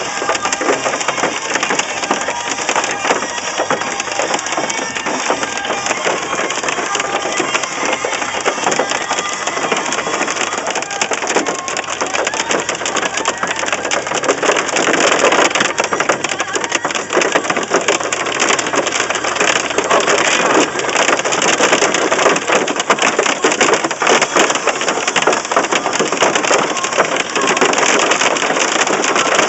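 Hail pelting a car's roof and windshield, heard from inside the cabin as a dense, unbroken clatter of small impacts. It grows heavier about halfway through.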